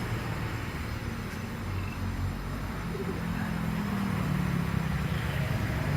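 Passing road traffic: a steady low rumble of vehicle engines, with a low hum that swells in the second half and grows slowly louder.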